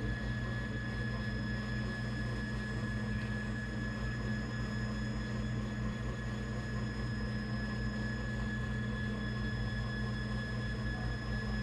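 Traxxas TRX-4 RC rock crawler's electric motor and gearing running with a steady whine under load as it climbs a steep quartz slab.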